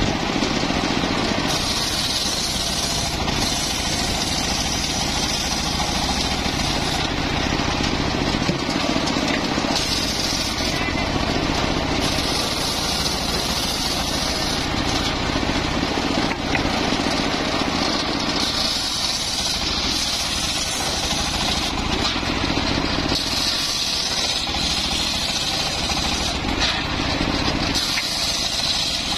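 Engine-driven wood saw running steadily while it works through mahogany timber. A higher hiss swells and fades every few seconds, in stretches lasting from about one to five seconds.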